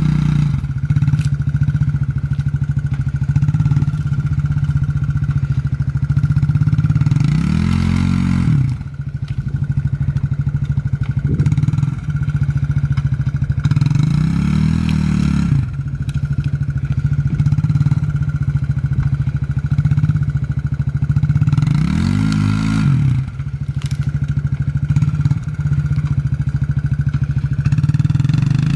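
Suzuki King Quad ATV engine running steadily under load while pulling a tree stump on a tow strap. Three times, about 8, 14 and 22 seconds in, the revs rise and fall back as the throttle is opened.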